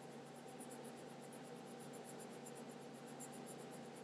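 Yellow coloured pencil scratching across paper in rapid back-and-forth shading strokes, several a second, faint and even.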